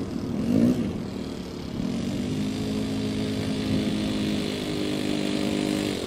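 Small model aircraft engine of the Super Buccaneer running steadily at low throttle as the plane taxis on the grass after landing.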